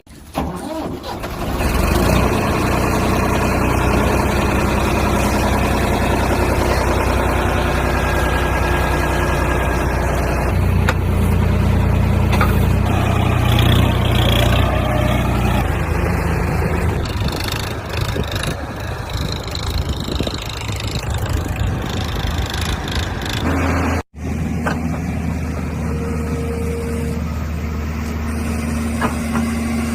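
Diesel engines of an excavator and a tractor running, with a harder-working stretch in the middle. The sound drops out briefly just after the start and again about 24 seconds in.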